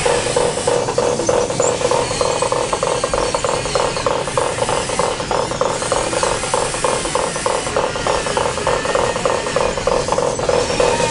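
Small electric gear motors of radio-controlled scale construction machines running under load: a steady whine with a fast, even clicking of the gearing.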